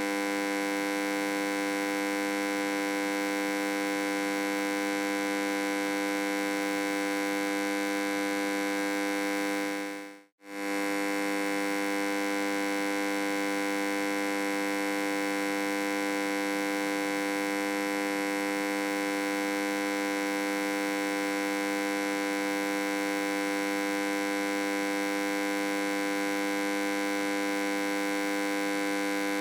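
Steady electric hum with a buzzy, many-overtone tone at a constant level. It fades out to silence for a moment about ten seconds in, then comes back unchanged.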